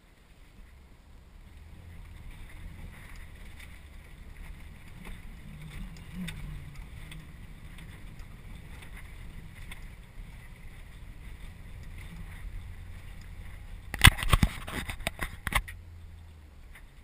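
A 4x4's engine running low and steady, heard from inside the cabin as the car wades through a river ford, with water washing around it. About fourteen seconds in, a quick burst of loud knocks and rattles lasts a second or two as the car jolts out of the water over rocks.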